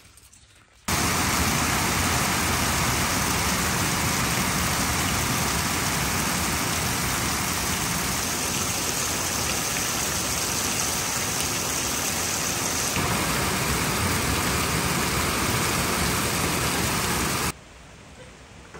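Heavy, steady rain: a dense hiss that starts suddenly about a second in and cuts off suddenly near the end.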